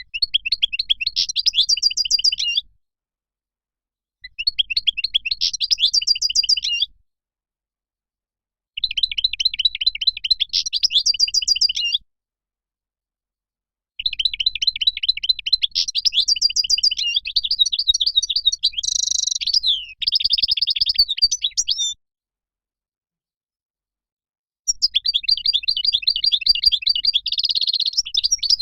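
European goldfinch singing: fast twittering phrases of rapid repeated notes, in five bursts separated by short silent gaps, the longest lasting about eight seconds in the middle.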